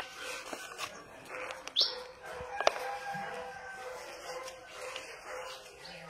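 Birds chirping in the background, with a few sharp clicks.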